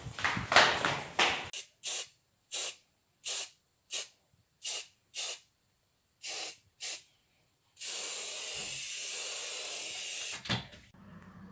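Aerosol spray can hissing: a string of about eight short puffs, then one steady spray lasting about two and a half seconds. A few louder, rougher noises come at the start, before the puffs.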